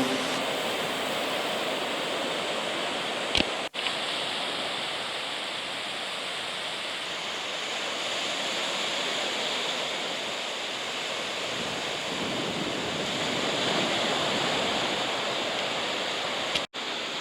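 Steady rush of ocean surf with wind noise, no distinct tones. The sound cuts out briefly twice, about four seconds in and near the end.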